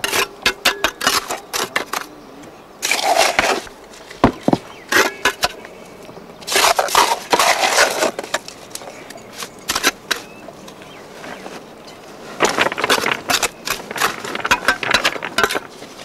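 Cement mortar mixed with gravel being worked by hand and with a mason's trowel: stretches of gritty scraping, three of them longer, with many sharp clicks and knocks of grit and stone in between.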